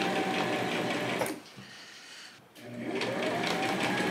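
Electric domestic sewing machine stitching denim jeans. It runs, stops abruptly about a second in, then starts again a second or so later, its motor whine rising as it comes up to speed.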